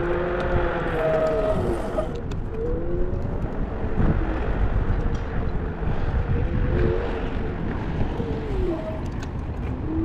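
Car on the road: steady road rumble under an engine hum whose pitch drops and then climbs again, about two seconds in and again near the end.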